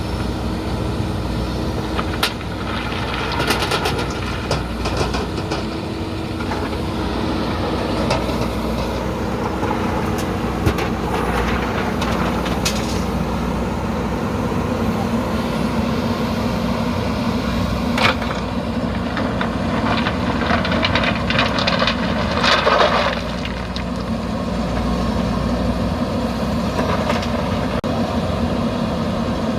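JCB backhoe loader's diesel engine running steadily while the bucket loads stone and gravel. Two spells of rattling clatter, about three seconds in and again around twenty seconds in, with a few sharp knocks in between.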